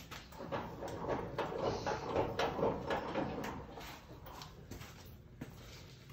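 Quick run of metal clicks, knocks and rattles from a telescopic bleacher's floor anchor being set down by hand, busiest in the first half and quieter near the end.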